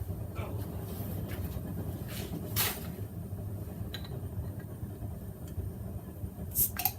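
A bottle cap being pried off with the bottle-opener end of a hand-forged mild-steel oyster shucker: a few metal-on-glass clicks and a short hiss about two and a half seconds in, with two sharper clicks near the end. Under them runs a steady low hum.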